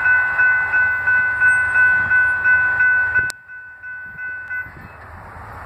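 Railroad grade-crossing bell ringing in quick even strokes, about three a second. It cuts off abruptly with a click a little over three seconds in, a fainter ring carries on briefly, and then only a low rumble is left.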